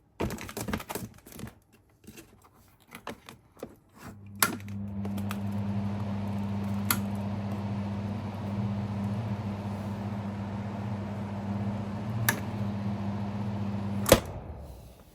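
Takasu Sangyo FF-200 ventilation fan: after a few seconds of clicks and rattles, its motor starts and runs with a steady electric hum and airflow whir for about ten seconds. A sharp click near the end switches it off, and the fan spins down.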